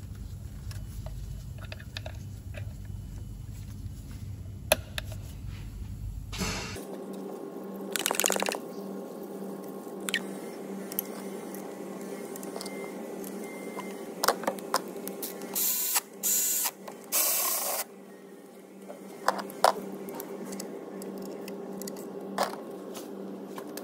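Gloved hands refitting pipes and connectors on a diesel fuel filter housing, with scattered plastic clicks and handling noises. There are a few short bursts of hiss, one at about 8 seconds and several around 16 to 18 seconds, over a steady low hum.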